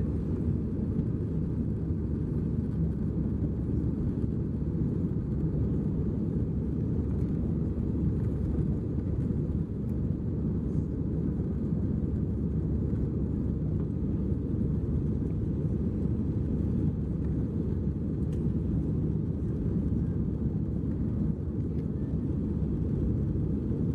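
Steady low rumble of an Airbus A320-214's CFM56-5B turbofan engines and airflow, heard inside the passenger cabin during the climb-out.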